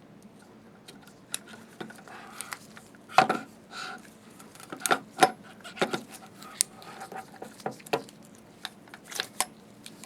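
Small metal slit-lamp parts clinking and knocking irregularly as they are handled and fitted during reassembly, the sharpest knock about three seconds in.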